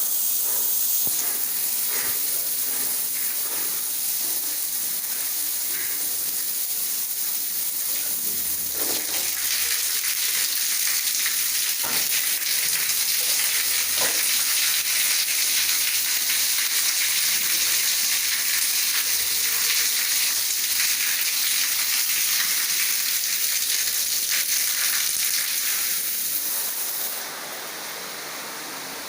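Shower water spraying from a thermostatic shower system, a steady hiss. It changes character about eight seconds in and turns quieter near the end, as the diverter switches the flow between spray outlets.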